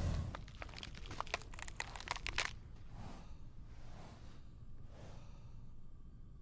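A quick run of sharp crackling, crunching clicks lasting about two and a half seconds, then a few fainter scattered sounds: the unexplained noise in the night.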